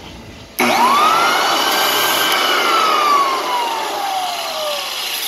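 Clarke American Sanders Super 7 floor edger switched on for a brief test cut on a hardwood floor. About half a second in, the motor's whine rises sharply to a steady pitch with sanding noise. After about two seconds it is switched off and the whine falls steadily as the motor and disc spin down.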